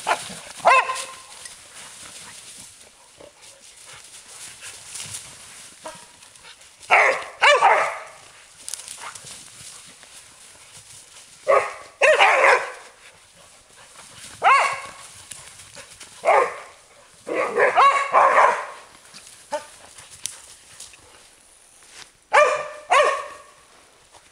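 Entlebucher Mountain Dogs barking in play as they wrestle and chase, in short bursts a few seconds apart, with dry leaves rustling under their feet between the barks.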